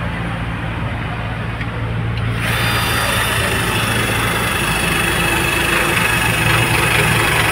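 A small electric motor starts about two and a half seconds in and runs steadily with a high whine and hiss, over the steady low hum of an idling vehicle engine.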